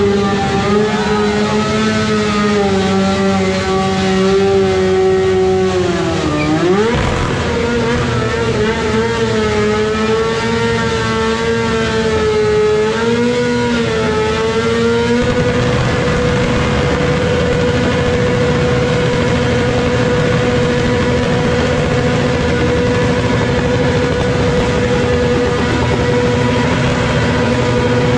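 Sport motorcycle engine held at high revs. Its pitch wavers, drops sharply about six and a half seconds in and climbs back, then holds dead steady for the second half.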